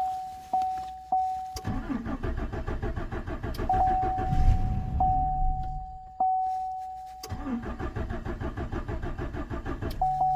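A 2014 Chevrolet Silverado's 4.3 V6 is cranked on its starter twice, for about five seconds and then about three, without catching. This is a crank no-start caused by no fuel supply pressure. A dashboard warning chime keeps sounding, steadily repeated, through and between the cranking.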